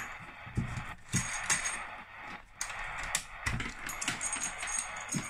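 Irregular metallic clinks and light knocks of cable leads and their metal connectors being handled and plugged in, a few with a brief high jingling ring.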